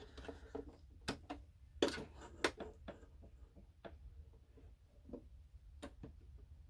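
A few irregular light clicks and knocks of hands working fabric and parts at a sewing machine, over a low steady hum; the machine is not stitching.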